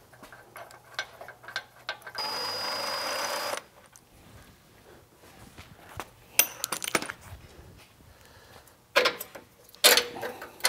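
Metal tools clicking and clanking on metal, with a power tool running for about a second and a half around two seconds in. A few sharper metal knocks come near the end.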